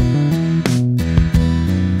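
Background music: strummed guitar chords changing about every half second.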